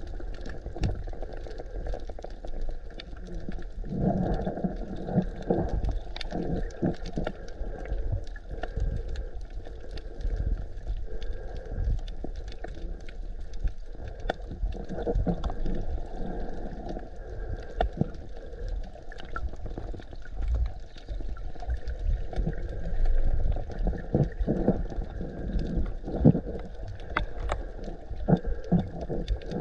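Muffled water sloshing and bubbling around a camera in the water while snorkeling, with many small irregular clicks and swells.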